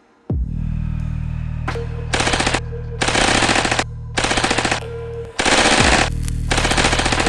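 Automatic rifle fire in five rapid bursts, each under a second long, over a deep steady low drone that comes in with a falling boom at the start.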